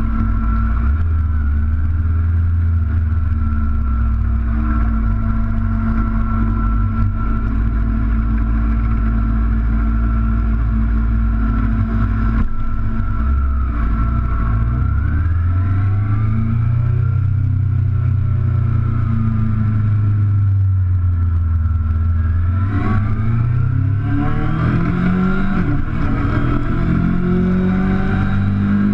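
Sport motorcycle engine running steadily at low revs as the bike rolls down the pit lane. About two-thirds of the way in it revs up again and again, rising in pitch through each gear as the bike accelerates onto the track.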